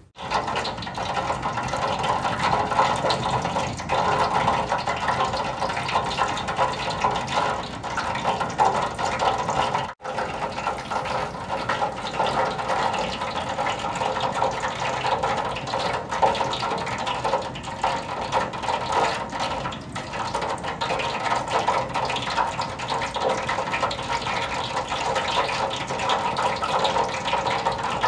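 Gas burner under a pan of frying oil running with a steady rushing roar while the oil heats. The noise cuts out for an instant about ten seconds in.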